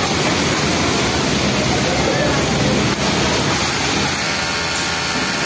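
Steady mechanical din of industrial sewing machines running on a garment factory floor, among them a Pegasus flatlock machine stitching a T-shirt's bottom hem.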